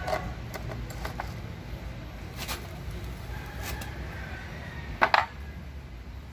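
Scattered light metallic clicks and clinks of the saw chain, steel guide bar and wrench being handled while the bar and chain are fitted onto the bar studs of a Stihl MS 170 chainsaw, with a sharper double clink about five seconds in.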